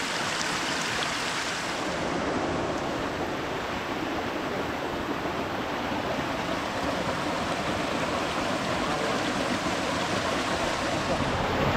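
Small rocky stream rushing over boulders: a steady noise of flowing water.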